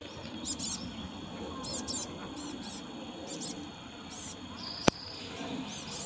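Small songbirds giving short, high, thin calls, often in quick pairs, repeated every second or so. A single sharp click about five seconds in is the loudest sound.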